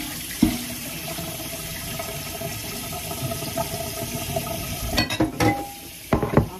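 Kitchen tap running water into a pan of potatoes as they are rinsed, a steady stream. A few knocks and clatters come near the end.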